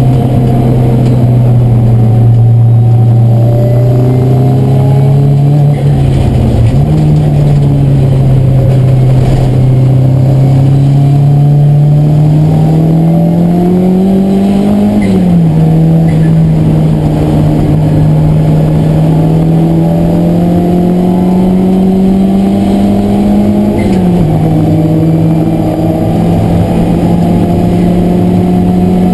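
Car engine heard from inside the cabin while it is driven hard on a race track. Its note climbs slowly under acceleration and drops sharply at gear changes, about 15 s in and again about 24 s in, with an earlier dip about 6 s in.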